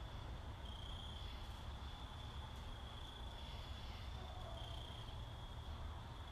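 Crickets trilling steadily in a high pitch, the trill shifting slightly in pitch now and then, over a faint low rumble.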